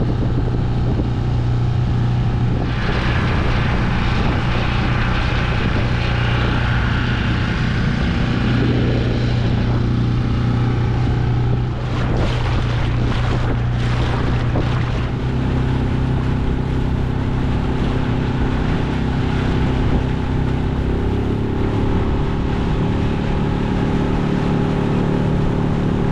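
Outboard motor on an inflatable dinghy running steadily under way, with a low hum, water rushing and splashing along the hull and wind on the microphone. The engine note changes a little past the middle.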